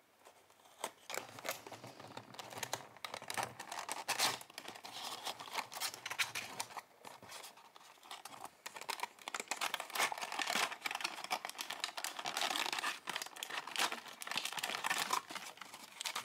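Small cardboard toy box being opened by hand: a craft knife slitting the box seal, then cardboard flaps and an inner card sleeve pulled open, a continuous run of tearing and crinkling with many small clicks.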